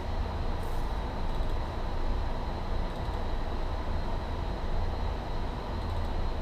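Steady low rumble of office room noise, most likely the ventilation and air conditioning, with a faint steady high whine.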